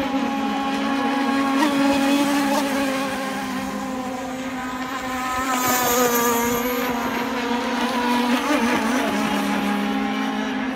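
Radio-controlled speedboat running at speed, its motor a high, steady buzz that grows louder as the boat passes close, about two and six seconds in.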